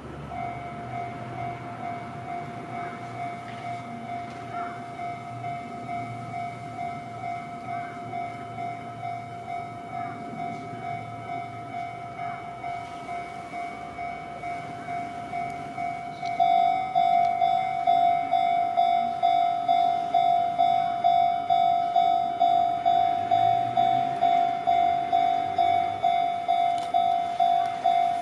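Japanese railway level-crossing warning alarm ringing in a steady, even rhythm of high dings. It starts just after the beginning and grows clearly louder and brighter a little past halfway.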